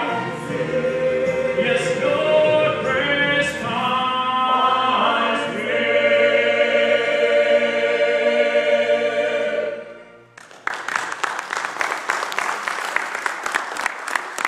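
A church choir and a male soloist sing the last phrases of a worship song, ending on a long held chord that cuts off about ten seconds in. After a brief pause the congregation applauds.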